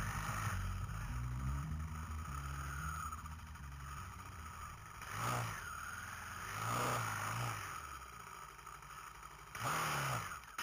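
Honda TRX700XX ATV's single-cylinder engine running at low revs while crawling over rocks, with four short throttle blips in the second half, each rising and falling in pitch.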